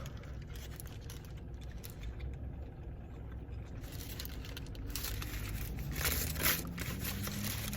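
Paper food wrapper crinkling and rustling in short bursts, mostly in the second half, over a steady low hum.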